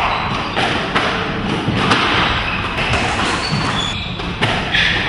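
Squash rally: a rubber squash ball struck by rackets and smacking off the court walls and wooden floor, giving sharp knocks every second or so, with a few short squeaks.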